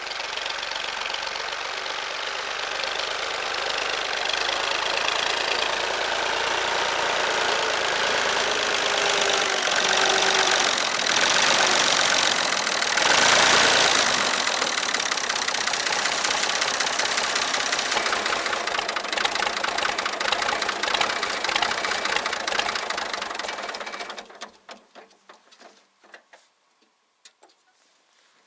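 Fiat farm tractor's engine running as the tractor drives, growing louder toward the middle, then cutting off abruptly about 24 seconds in, leaving only faint clicks.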